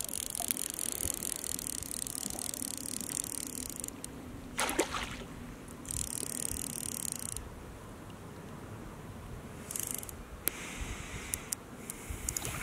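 Water splashing and trickling at the lake surface, with short louder splashes about five, six and ten seconds in, from a hooked northern pike being played close in.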